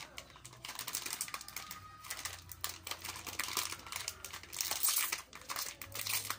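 Plastic wrapper crinkling and rustling in the hands as a small packaged item is worked open, in irregular crackles.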